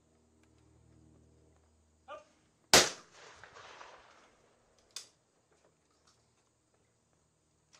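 A single loud shotgun shot from an over-and-under trap gun about three seconds in, its echo fading over a second and a half. A second, much fainter sharp report follows about two seconds later.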